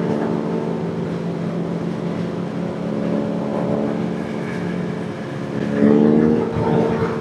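Inline-four sport bike engine running at road speed, with wind and road noise; about six seconds in the engine revs up and gets louder, then eases back.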